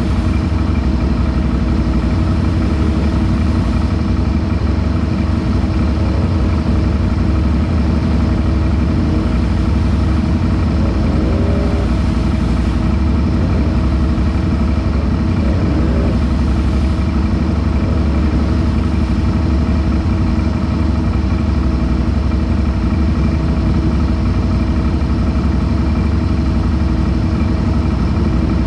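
Off-road vehicle engine idling steadily close by, with a few faint rising and falling revs about eleven and fifteen seconds in.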